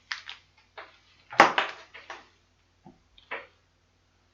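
Handling noise from an oscilloscope test probe and its packaging being taken out and turned over: a scatter of short rustles and clicks, the loudest a sharp knock about a second and a half in.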